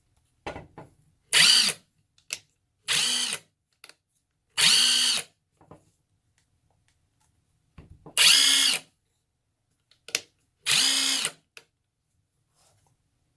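Tenwa cordless half-inch impact wrench triggered five times in short bursts, its motor spinning up and winding down each time with no fastener on it, with small switch clicks between pulls.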